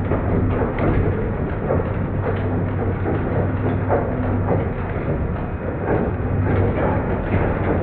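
Garage door travelling on its tracks under an opener: a steady motor hum with a continuous clatter of rollers and panels.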